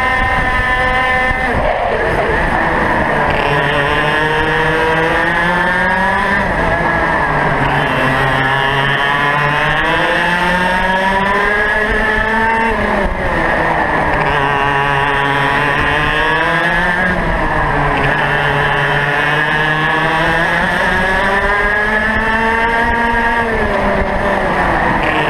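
Racing kart engine at race pace, heard onboard. Its pitch climbs steadily and then drops sharply about four times as the kart accelerates and slows through the corners.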